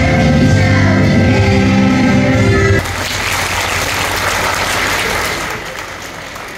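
Music playing for the children's dance, which cuts off suddenly about three seconds in, followed by audience applause that dies away.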